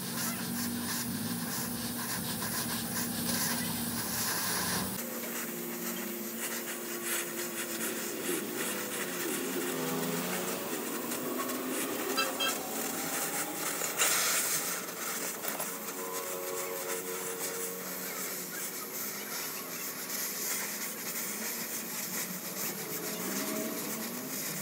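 Gas torch flame hissing steadily as it heats the end of a steel reinforcing bar. One brief sharper sound comes about 14 seconds in.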